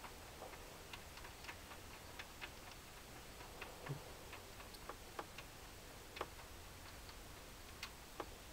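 Faint, irregular light clicks and ticks, a dozen or so spread unevenly, with no steady rhythm.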